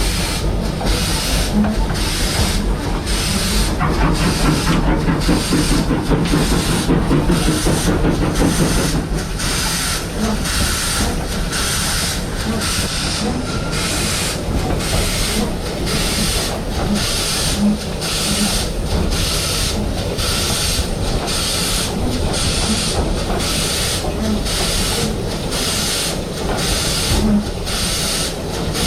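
Steam locomotive working, its exhaust beats and steam hiss coming in an even rhythm of a little more than one a second.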